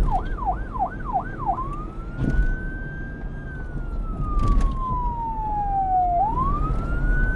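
Police car siren in fast yelp mode, about three rapid up-and-down sweeps a second, switching to the slow wail about a second and a half in: it rises, then falls slowly over about three seconds and starts rising again near the end.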